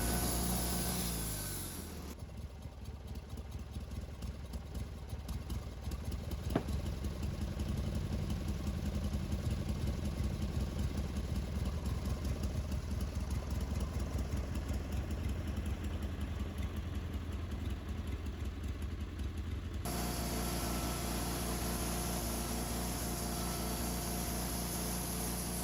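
An engine winds down over the first two seconds, then runs at a low, rapidly pulsing idle with one sharp click about six and a half seconds in. At about twenty seconds the sound switches abruptly to a steadier engine hum with a clearer pitch.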